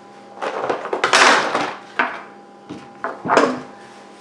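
Handling noise: a run of rustles, knocks and clunks as a magazine is taken from its box and the Hatsan Blitz air rifle is picked up off a wooden table. The longest, loudest rustle comes about a second in.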